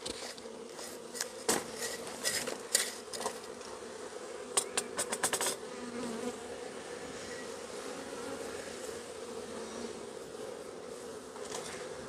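Honeybees buzzing close around the microphone, a steady wavering hum. Scattered sharp clicks break over it, with a quick run of ticks about five seconds in.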